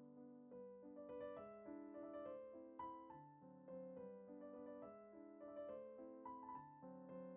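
Soft background music: gentle piano playing chords and a simple melody.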